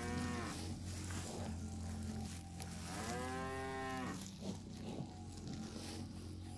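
Zebu-type cattle mooing: a call tailing off at the very start, then one fuller moo about three seconds in lasting about a second, its pitch rising and then falling.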